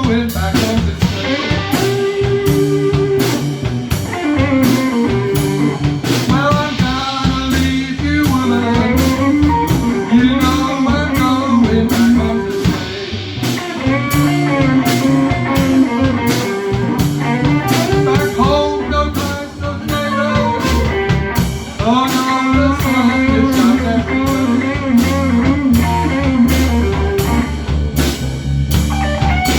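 Live electric blues band playing a slow blues: electric guitar with bending notes over a drum kit keeping a steady beat.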